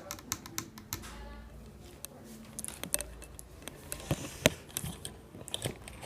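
Scattered small clicks and taps of hands handling a laptop's opened case and parts, with one sharper click about four and a half seconds in.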